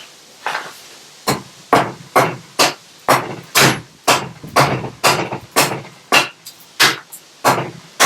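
Broad axe hewing a log by hand: a steady run of sharp chopping strikes into the wood, about two a second.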